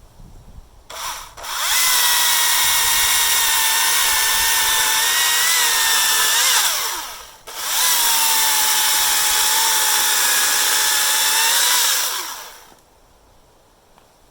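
Husqvarna T535i XP battery top-handle chainsaw cutting oak logs, with a high, steady electric whine in two runs of about five seconds each and a short break between. The pitch sags a little under load.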